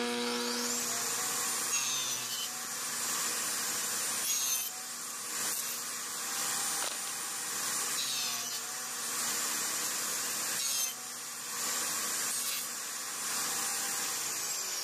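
Table saw fitted with a dado stack spinning up, then cutting dadoes in 3/4-inch birch plywood drawer sides in several passes, the loudness dipping and returning with each cut. The blade begins winding down near the end.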